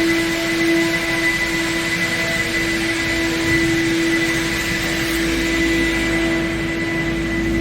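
A machine running steadily: a constant hum with a higher whine over an even rush of air.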